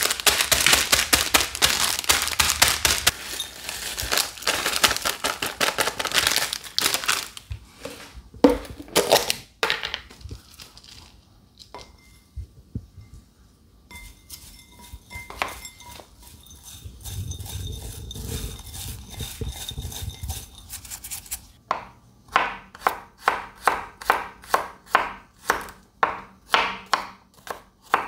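Plastic snack bag crinkling and crackling as the Cheetos inside are crushed under a bottle pressed down on it. After a quieter stretch of handling, a chef's knife chops garlic cloves on a plastic cutting board near the end, in quick even strokes about two to three a second.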